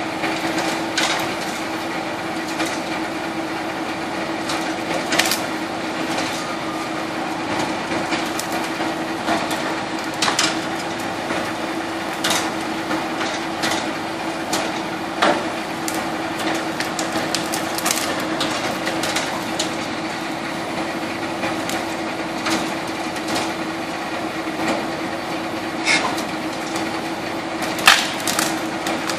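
Heizohack 6300 wood chipper running with a steady hum as brushwood is fed into it, branches cracking and splintering as they are chipped. Sharp snaps come every few seconds, the loudest near the end.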